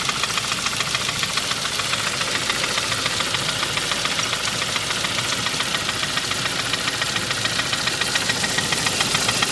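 2001 Saab 9-5 engine running at a steady speed with a rapid, regular ticking knock. New main and rod bearings have not cured it, and the owner suspects lifters that are still clicking, off timing, or a pulley.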